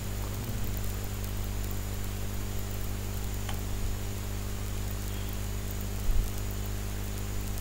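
Steady electrical mains hum and hiss from the recording chain, with one short low thump about six seconds in.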